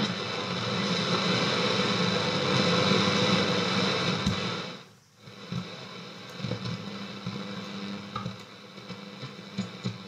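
Shortwave static from a 1952 Saba Freiburg W2 tube radio being tuned between stations: a dense rush of noise with a steady hum. It drops away almost to nothing about five seconds in, then comes back as fainter hiss with scattered clicks.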